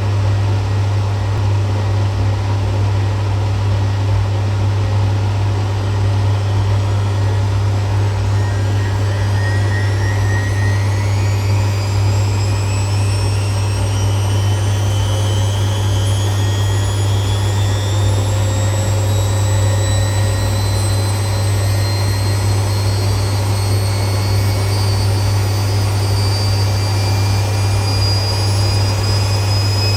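Washing machine in its spin cycle: a steady low hum, with a whine that begins rising in pitch about eight seconds in and keeps climbing as the drum gathers speed.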